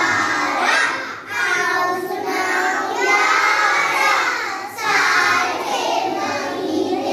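A class of young children singing the names of the months together in unison, in drawn-out phrases with short breaks about a second in and near the five-second mark.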